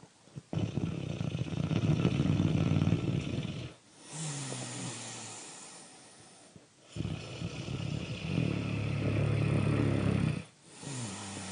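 Loud snoring: two long, rattling snores, each followed by a softer breath with a brief wheezy, wavering tone.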